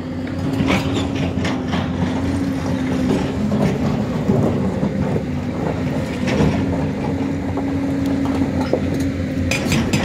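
Hyundai hydraulic excavator's diesel engine running steadily under load, with irregular knocks and clatter of broken stone as its bucket digs into the rock pile. The knocks grow sharper and more frequent near the end.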